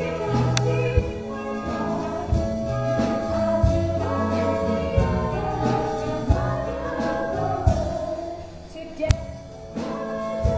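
Show music from the musical's accompaniment: held notes over a bass line, with sharp percussion hits every second or so.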